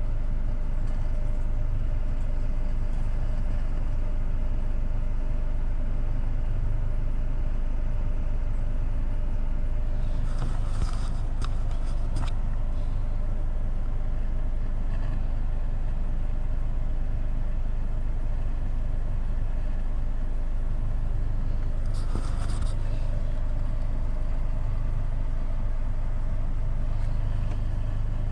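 Steady low bass test tone playing through the car's subwoofer during amplifier gain setting, with short scratchy handling noises from adjusting the controls about ten seconds in and again just past twenty seconds.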